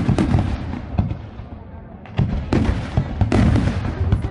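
Fireworks display: aerial shells bursting with booms and a dense crackle of small pops. The bursts die down about a second and a half in, then a fresh run of loud bursts starts about two seconds in.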